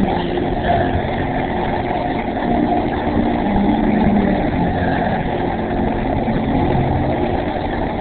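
A motor vehicle engine running steadily, with a continuous low rumble.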